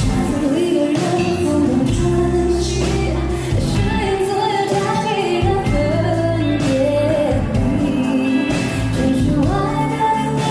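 Live pop song played by a band, with a female voice carrying a gliding melody over it.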